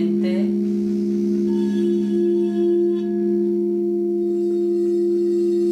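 Crystal singing bowls played with a mallet, several bowls ringing together in sustained, overlapping tones. The higher of the two main tones swells around the middle.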